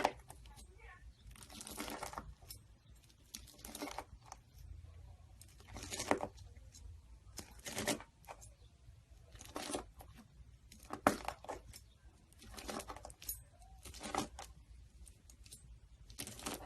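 Slime being squeezed and stretched by hand, giving a crackling, squishing burst about every one to two seconds, around ten in all.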